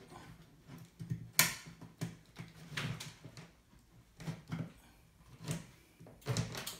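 Scattered clicks and short scrapes of a recessed ceiling downlight fitting being handled, with one sharp click about a second and a half in and a quick run of clicks near the end.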